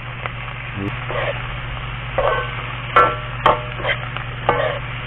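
A spatula scraping and clanking against a steel wok while kagotkot shells are stir-fried. There are a few sharp strokes in the second half over a light sizzle and a steady low hum.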